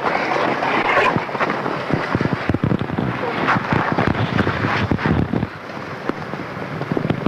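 Wind rumbling on the microphone with many irregular crackles and knocks, easing a little after about five and a half seconds.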